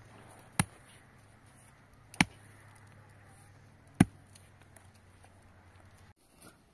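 Three sharp chopping strikes, about one and a half to two seconds apart, over a faint low steady hum that stops near the end.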